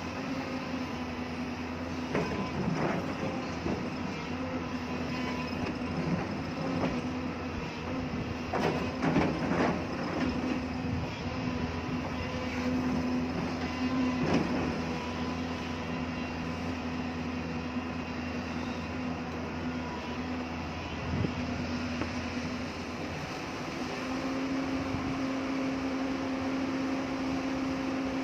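Excavator's diesel engine running steadily under load, with intermittent metallic clanks and scrapes as the bucket works the hard rock. The engine grows louder about three-quarters of the way through.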